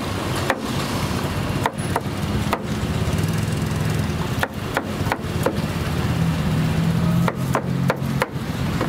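Irregular sharp knocks, as of chopping on a wooden board, over a steady low hum and street noise.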